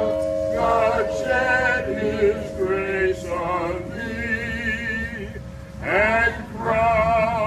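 Singing in phrases, the pitch wavering, over the steady lingering ring of a large hanging bell.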